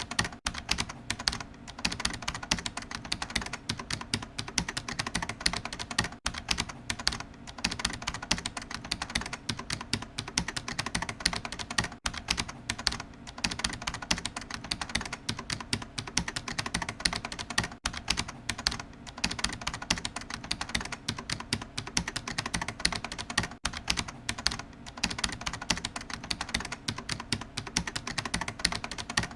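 Computer keyboard being typed on steadily, a fast, continuous run of key clicks.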